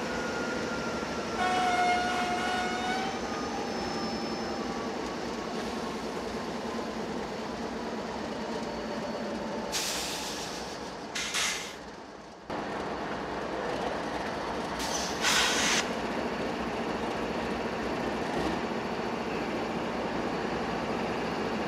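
Norfolk Southern train moving through a rail yard: the steady rolling noise of the train, with a brief high tone about two seconds in and a few short hissing bursts around ten, eleven and fifteen seconds in.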